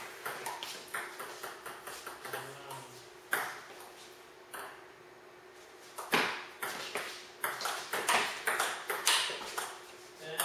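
Table tennis rally: a ping-pong ball clicking off the paddles and the table in quick alternation. There are two runs of hits with a quieter gap of about two seconds between them.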